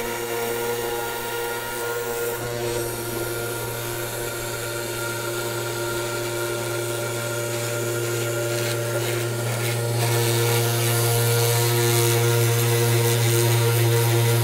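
Spindle motor of a home-built, 3D-printed CNC router running steadily while the bit mills letters into a wooden board: a constant hum with a rasping cutting noise, which gets louder about ten seconds in.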